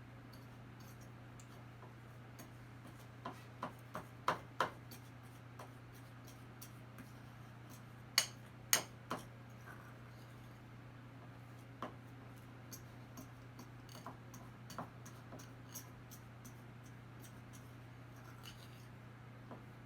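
Fork clinking and tapping irregularly against a mixing bowl while cutting cold butter into flour until crumbly, with a few louder knocks about four and eight seconds in.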